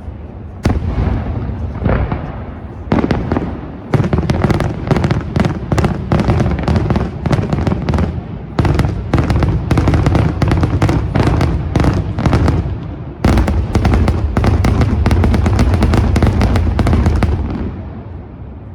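Senatore Fireworks daytime fireworks display: a few separate loud bangs, then from about four seconds in dense rapid barrages of sharp bangs, broken once briefly, that thin out and die away near the end.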